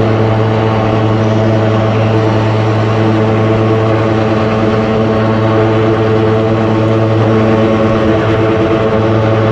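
High-pressure drain jetter's engine and pump running steadily, a constant loud hum with a strong low pitch.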